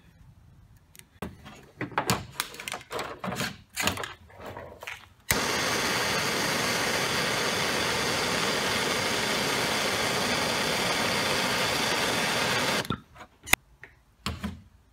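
Handheld gas torch burning with a steady, even hiss for about seven and a half seconds, shrinking red heat-shrink tubing onto a battery cable lug; it starts suddenly about five seconds in and cuts off suddenly. Before it, light clicks and rustles of the cable and tubing being handled.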